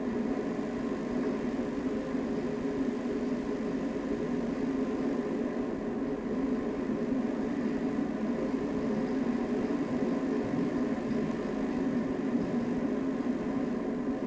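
Steady low mechanical drone of underground colliery machinery running, with a few faint steady hum tones above it.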